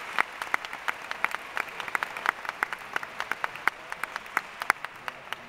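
Audience applauding: many hand claps, with single sharp claps standing out over a steady patter, thinning a little near the end.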